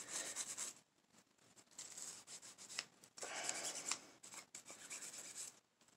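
A cleaning brush scrubbing the outside of a steel AK-47 bolt carrier to loosen built-up gunk, in several short spells of scratchy strokes with brief pauses between.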